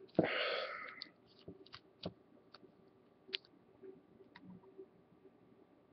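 Scattered light clicks and taps of a hard plastic graded-card slab being handled in the fingers, after a short hiss-like burst in the first second.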